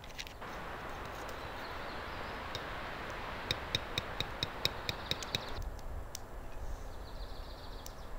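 Metal spoon clinking against a steel cup as drink powder is stirred in, about four clinks a second for a couple of seconds, over a steady hiss that stops sharply soon after.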